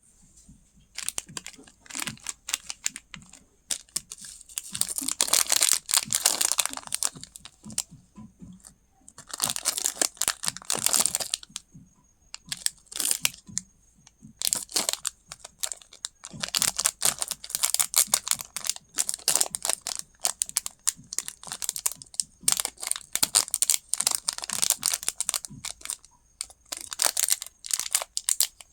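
Plastic candy wrappers being crinkled and torn open, in irregular bursts of crackling and rustling with short pauses between.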